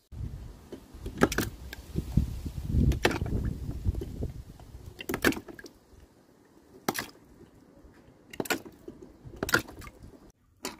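Die-cast toy cars knocking on a wet wooden board and dropping into a plastic tub of water: a string of sharp knocks and splashes a second or two apart, with low wind rumble over the first few seconds.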